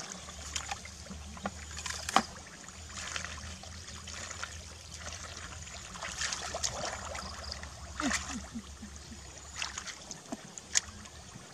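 Hands groping and squelching in wet mud and shallow water, with scattered small splashes, the sharpest about two seconds in and near the end, over a steady low rumble.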